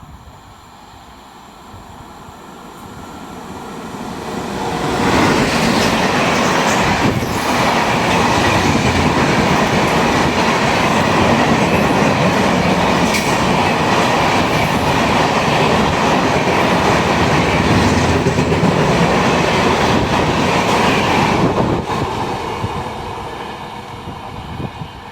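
Indian Railways passenger train passing close at speed: the wheel and rail noise builds over about five seconds, stays loud and steady with the clatter of the wheels over the rails, then drops away near the end.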